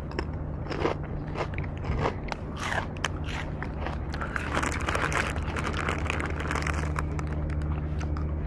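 Crackling and rubbing of a handheld camera being handled, with scattered clicks and light footsteps, over a steady low hum.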